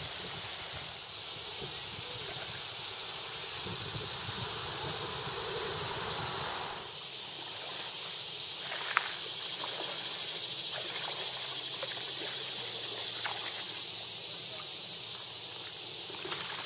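Steady high-pitched insect chorus of summer cicadas or crickets, with a few faint sharp clicks in the second half.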